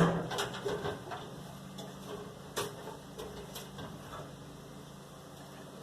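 Scattered metallic clicks and knocks while working on a homemade baler whose hydraulic cylinder is binding, the loudest knock right at the start and the rest fewer and lighter after the first couple of seconds, over a steady low hum.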